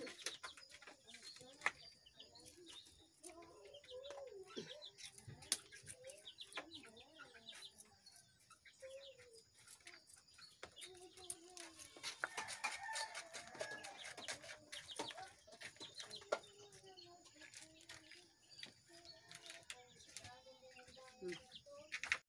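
Chickens clucking in short calls on and off, faint, with scattered small knocks and leaf rustling from potted plants being handled.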